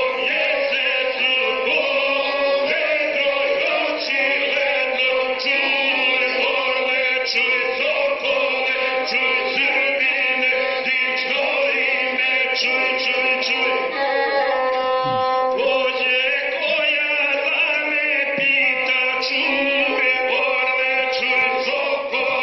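A group of voices singing a traditional Balkan folk song (izvorna pjesma) in long, slowly changing chanted lines, played back through a television's speaker.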